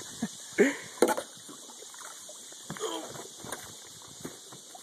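A landing net with a fish in it being swung aboard a boat, with a sharp knock just after a second in. Short voice exclamations come a few times.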